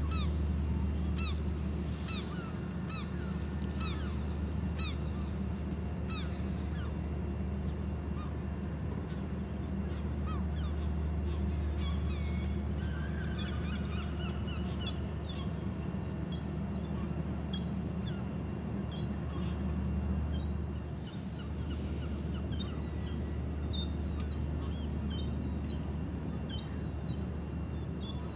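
Low, steady machinery drone from the Azamara Pursuit cruise ship moving slowly past, with a bird giving short high calls over and over, about one a second. The calls thin out in the middle and come more regularly in the second half.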